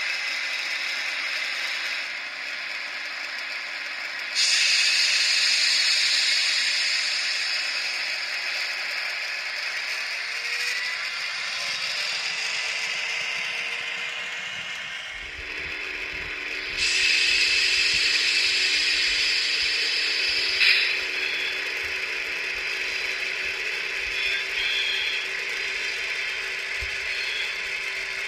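H0-scale Jägerndorfer ÖBB class 2068 diesel locomotive model running along the track. Its ESU sound decoder plays diesel engine sound through a small speaker, mixed with the whir of its motor and gears. The sound steps louder about four seconds in and again around seventeen seconds.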